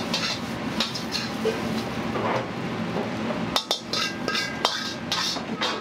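Metal ladle clanking and scraping against a steel wok while stir-frying fried rice, with repeated sharp metallic strikes, some ringing briefly about four seconds in. A steady low hum runs underneath.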